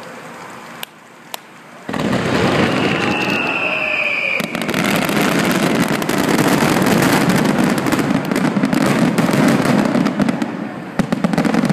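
Fireworks finale: two sharp bangs, then about two seconds in a dense, continuous barrage of rapid bursts and crackling begins. A whistling tone, falling slightly, runs through it for about a second and a half.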